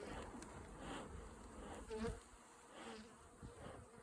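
Honey bees buzzing around an open hive, with single bees flying close past and bumping in, the loudest pass about two seconds in. The bees are agitated and defensive after their hive has been disturbed.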